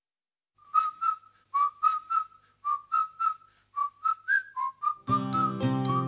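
A whistled tune of short notes with small slides between them, the opening of a song. About five seconds in, a full band with bass comes in under the whistling.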